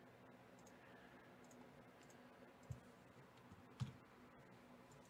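Near silence with two sharp computer-mouse clicks about a second apart, the second one louder.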